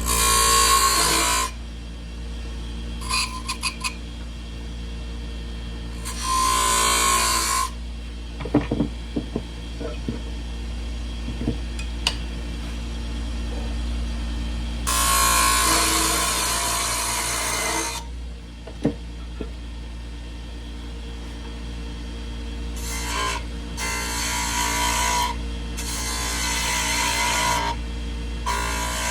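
Wood lathe running with a steady motor hum while a curly cherry handle spins on it, a tool scraping against the turning wood in bursts of a few seconds, four times, with a few light clicks in between.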